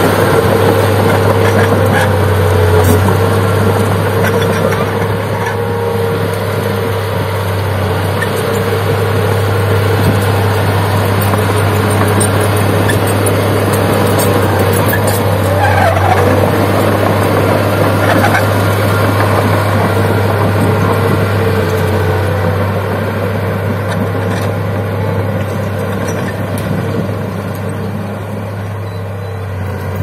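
Komatsu D31P crawler bulldozer's diesel engine running steadily under load as it pushes soil with its blade, with clanking from its steel tracks. It grows a little fainter near the end as the machine moves off.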